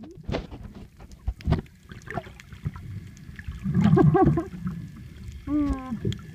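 Underwater sound as a phone camera picks it up while snorkelling: muffled knocks, thuds and water movement. About four seconds in comes a cluster of muffled voice-like sounds, and near the end one that falls in pitch.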